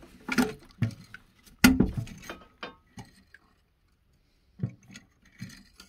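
Scattered clinks and clicks of a toilet flapper's lift chain and the plastic flush-handle lift arm knocking in the porcelain tank as the chain is hooked to the arm. About eight sharp clicks, the loudest about a second and a half in, with a short lull past the middle.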